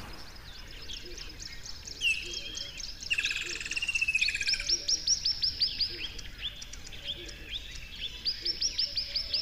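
Several songbirds singing at once, with quick high chirps throughout. A rapid trill comes in about three seconds in, and twice a fast run of repeated sharp notes follows, the second near the end.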